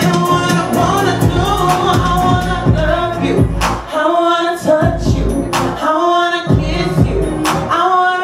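Music: a song with sung vocals over a beat with regular drum hits; the bass drops out briefly a few times.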